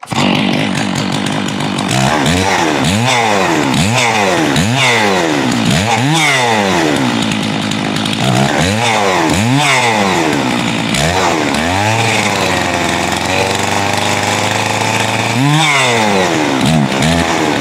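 Stihl MS660 two-stroke chainsaw starting abruptly and running, revved up and down over and over about once a second, with a steadier stretch partway through and another rev near the end. It is being run to use up the last of its fuel before storage.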